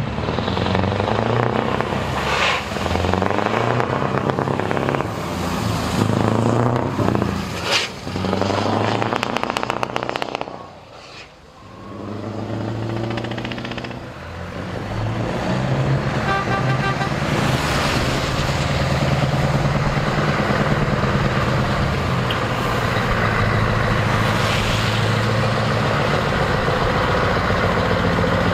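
Heavy truck diesel engines with open exhaust pipes running and revving as the trucks pull away, the pitch rising and falling with gear changes. After a brief drop about eleven seconds in, a truck engine runs steadily and deep as it passes.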